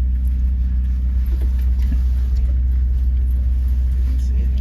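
Passenger train running slowly, a steady low rumble heard from on board.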